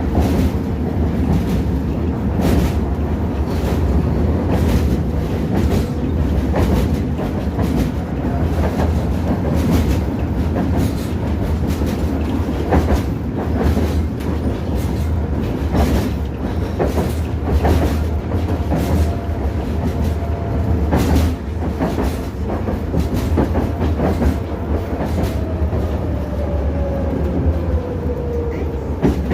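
Tatra T6B5SU tram running along the track, its wheels knocking over rail joints again and again above a steady low rumble. Near the end a faint whine falls in pitch.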